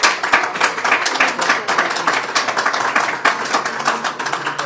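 Small audience applauding: dense, steady clapping that starts to thin out near the end.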